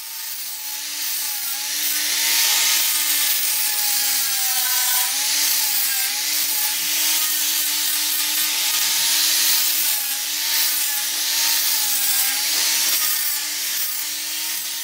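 Electric angle grinder grinding the notched end of a steel tube to clean up a hole-saw notch. The motor whine rises as it spins up at the start, then dips and wavers as the disc bears on the metal, over a steady hiss of grinding.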